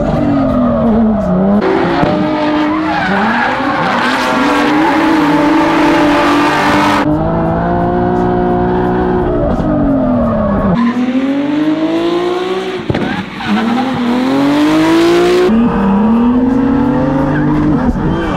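Nissan 370Z drift car's engine revving hard, its pitch swinging up and down as the driver works the throttle, with the tyres squealing and skidding through two long slides, heard from inside the cabin.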